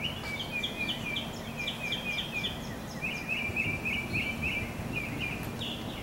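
A bird chirping in a fast run of short high notes, about five a second, with a brief pause about three seconds in. Under it runs a steady low rumble, which is taken for constant distant thunder.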